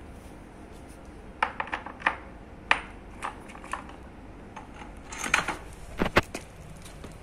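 Elliptical trainer pedal being handled and set onto its steel pedal arm during assembly: a scattered series of short clicks and knocks of plastic against metal, with a cluster around five seconds in and the loudest double knock about six seconds in.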